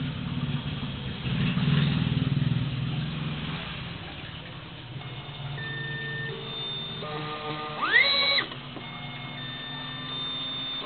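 Stepper motors of a TENETH T24-A vinyl cutting plotter whining as the carriage is jogged from the arrow keys: steady tones that change pitch in steps, then a loud rising whine about eight seconds in as the carriage speeds up. A low rumble fills the first few seconds.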